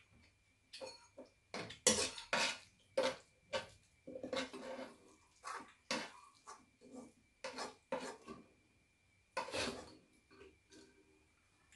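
Spoons scraping and clinking against a frying pan and a bowl as fried rice is scooped up, in irregular strokes with pauses between.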